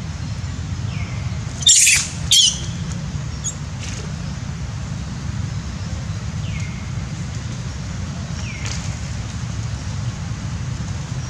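Outdoor ambience: a steady low rumble, with two short, loud, shrill animal calls about two seconds in and a few faint high falling chirps later.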